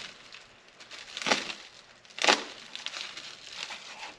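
Parcel packaging being handled and cut open: crinkling and crackling of the wrapping, with two louder rustles about a second apart.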